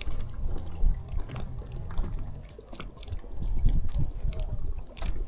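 Water splashing and sloshing in irregular bursts, with scattered short clicks and a low rumble underneath.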